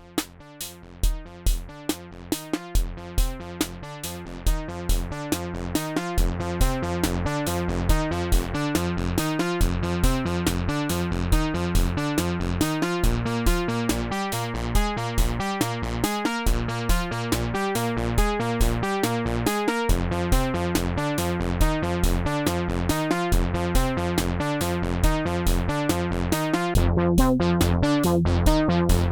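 MFB-301 Pro drum machine playing one of its factory preset beats: a steady electronic drum pattern with kicks about twice a second and a pitched synth bass part, fading in over the first several seconds.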